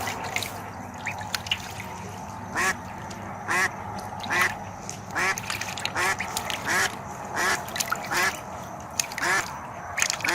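Duck quacking over and over, about one call a second from about two and a half seconds in, with a few fainter short calls before that.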